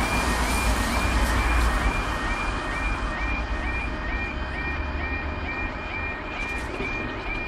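Level crossing warning alarm sounding over and over, a high note then a lower note about twice a second, the sign that the crossing is closing for an approaching train. A car crosses on the wet road in the first couple of seconds, its tyres hissing and its engine rumbling.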